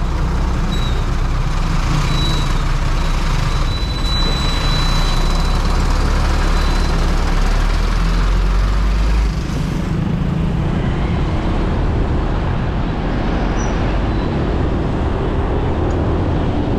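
Motorbike riding along a road: steady engine and rushing road noise, with a deep rumble that eases a little about nine seconds in.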